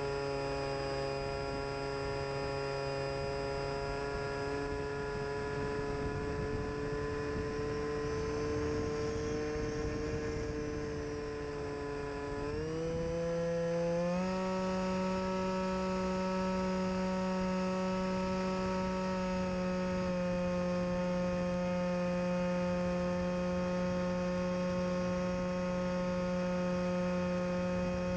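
Bixler RC plane's brushless electric motor and pusher propeller humming steadily, as picked up by its onboard camera. About halfway through it speeds up in two quick steps to a higher pitch and holds there.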